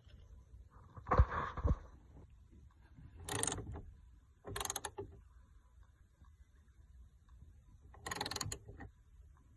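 Hino Profia truck cab door working, with two dull knocks about a second in and then three separate creaking squeals. This is the abnormal noise on opening and closing that is said to be common on this truck.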